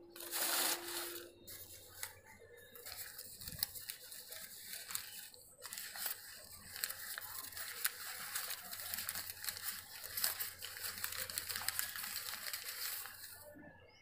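Crumpled ruled notebook paper crinkling and rustling as hands pull it off an egg it was wrapped around, with many small crackles. The loudest burst comes about half a second in.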